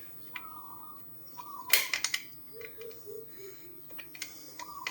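Scattered light metallic clicks and scrapes of a retaining bolt being worked by hand into the mounting on a motorcycle exhaust pipe joint, with one sharper click about two seconds in.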